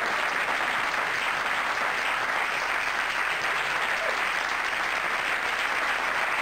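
Studio audience applauding, with steady clapping throughout.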